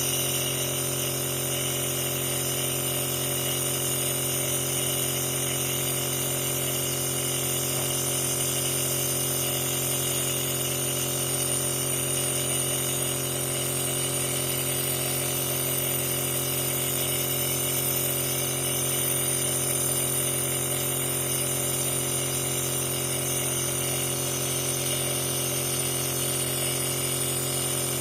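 Compressor nebulizer running with a steady hum and hiss, misting medicine for a child's cough.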